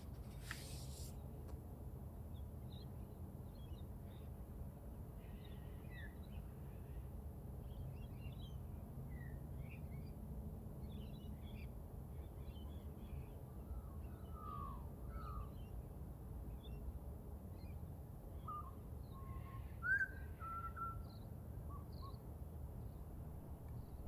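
Birds calling and chirping in scattered short notes and quick glides, over a steady low background rumble. A book page turns with a brief papery swish about half a second in, and one louder bird note stands out near the end.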